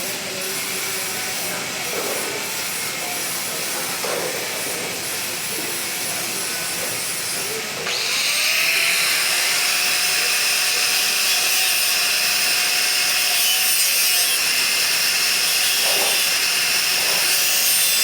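MIG welding arc: a steady sizzling hiss that gets louder about eight seconds in.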